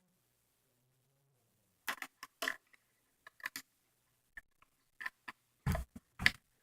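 Lego plastic pieces clicking and knocking as they are handled: a dozen or so irregular sharp clicks starting about two seconds in, the loudest two near the end.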